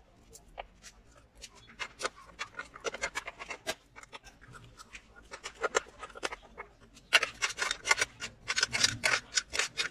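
Ratchet wrench clicking in quick, uneven runs as bolts on a lawn mower engine are turned, with light metal scraping between.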